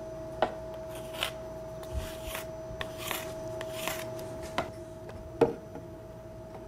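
Hand file scraping along the milled edge of an acrylic sheet in about four long strokes, smoothing its rough spots. A few sharp clicks come near the start and after four seconds, over a steady hum.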